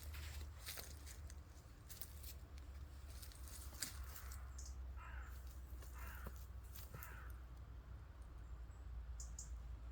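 A crow cawing three times, about a second apart, over a steady low rumble, with scattered crackles before the calls and a faint high bird chirp near the end.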